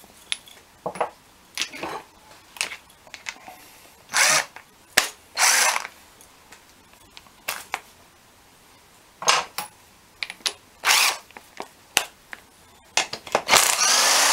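Cordless drill with a socket extension spinning in several short bursts to back out the bolts on an OMC Cobra sterndrive lower unit, the longest burst near the end, between sharp clinks of metal tools being handled.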